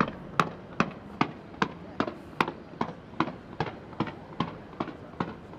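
Fireworks going off in a rapid, evenly spaced series of sharp bangs, about two and a half a second.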